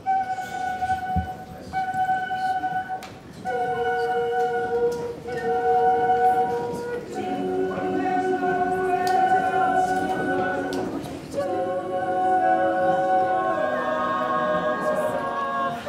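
Choir-like music of slow, held notes, a single note at a time at first and then full chords of several notes from about halfway, each changing every second or two.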